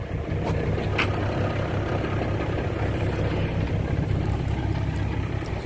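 Isuzu 6HE1 inline-six diesel engine of a 1998 Isuzu Forward truck idling steadily.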